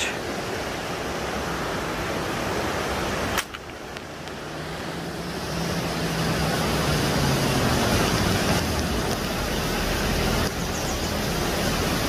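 Steady rush of a fast-flowing river over rocks, broken off briefly about three and a half seconds in.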